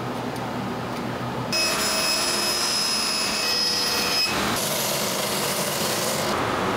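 A band saw running and cutting thin plywood, with a steady high whine, then, about four and a half seconds in, a benchtop belt sander sanding the plywood's edge.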